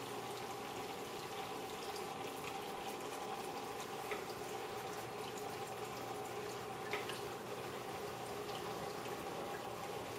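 Steady bubbling and trickling of water in a turtle tank, with a faint pump hum underneath. Two small ticks stand out, about four and seven seconds in.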